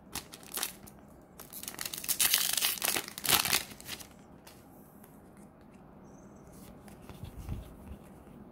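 A foil Weiss Schwarz booster pack being torn open and crinkling in the hands, in a run of crackling bursts that are loudest two to three and a half seconds in and die down after about four seconds.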